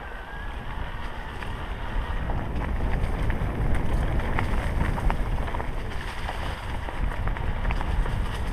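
Wind buffeting the microphone of a bike-mounted camera as a mountain bike rolls downhill on a dirt singletrack strewn with leaves. Tyre noise comes through with scattered small clicks and rattles. The rumble grows louder about two seconds in as the bike picks up speed.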